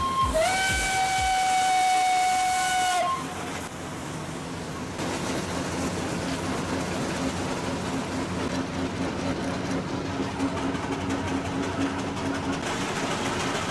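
Steam traction engine whistle blowing one steady note for about two and a half seconds, then cutting off, leaving the steady low running rumble of the engines driving along the road.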